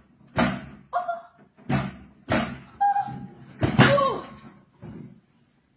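A white upright home exercise bike rocking and banging against the floor several times, then tipping over with the loudest crash about four seconds in. A girl's brief cries are mixed in.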